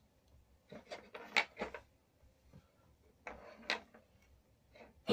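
Short clicks and rustles from handling a solar cable and its plastic connector parts, in two quick clusters about a second in and just past three seconds, with a sharper knock at the very end.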